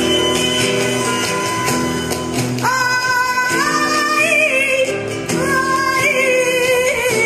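Music with a steady instrumental accompaniment; a singing voice comes in about a third of the way through, its notes wavering and sliding.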